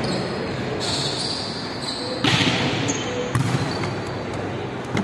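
Ball being struck during play in a large echoing sports hall: a few sharp hits, the loudest about two seconds in, over a steady din of players' movement and voices.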